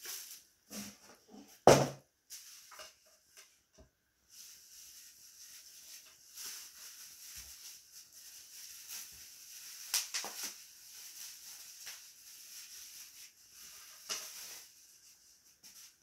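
A sharp knock near the start, then about ten seconds of bubble wrap crinkling and crackling as hands pull it off a speaker.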